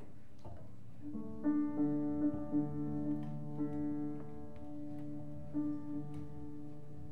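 Upright piano and bowed double bass beginning a slow improvised piece: about a second in, long sustained notes enter and a few piano notes are struck over them, with another struck chord near the end.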